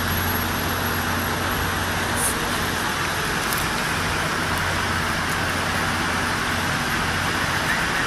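Steady outdoor background noise: an even rush with a low hum underneath, unchanging throughout.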